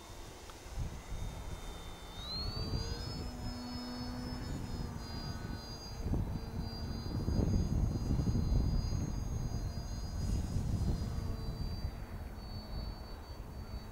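Electric motor and propeller of a radio-controlled aerobatic Yak model whining in flight. The pitch rises about two seconds in as the throttle opens, then holds high, with wind rumbling on the microphone.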